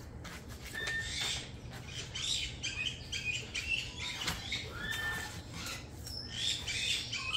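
Repeated short squeaks of foam packing rubbing against a cardboard shipping box as the box is opened, with handling clicks and rustling.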